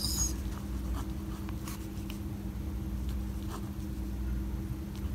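Ballpoint pen writing on paper: faint, short scratching strokes, over a steady low hum.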